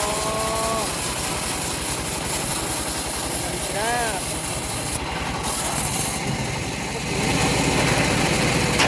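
Engine of a homemade bandsaw sawmill running steadily with a regular low pulse, getting louder about seven seconds in.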